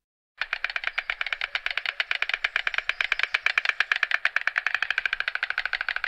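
White stork clattering its bill: a rapid, even rattle of many sharp strokes a second, starting about half a second in and running on without a break.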